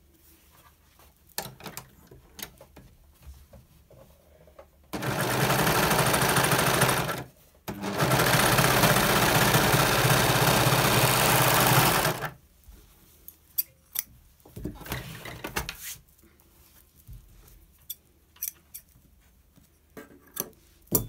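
Overlocker (serger) stitching through folded fabric, running steadily in two runs, the first about two seconds and the second about four, with a brief stop between. Afterwards come a few light clicks as scissors trim the thread chain.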